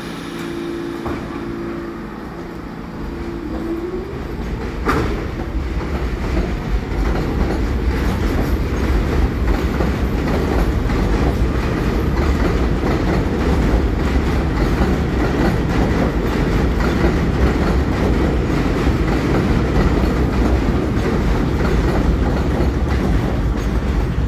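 R46 subway train pulling out of an elevated station. A steady hum with a tone that rises about three seconds in, a sharp clank about five seconds in, then the rumble and clickety-clack of its wheels on the elevated track growing louder as it accelerates away.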